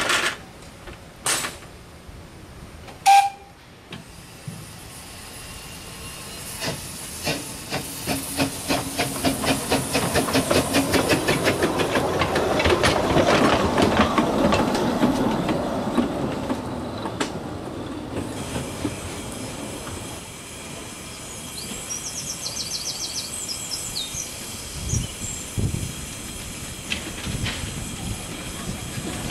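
A W.G. Bagnall 2-4-0 tank narrow-gauge steam locomotive runs past close by. Its wheels clatter rhythmically over the rail joints, growing loudest as it passes about halfway through, then fading. A steady hiss follows in the later part.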